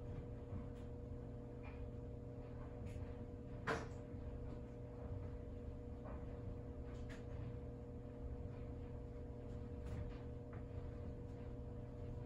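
Quiet room tone: a steady low hum with a faint steady whine, and a few scattered soft clicks, the clearest about four seconds in.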